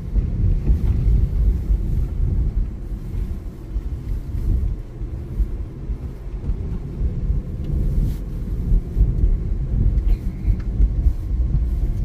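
Car driving on a wet, snow-dusted road, heard from inside the cabin: a steady low rumble of road and engine noise that swells and dips slightly.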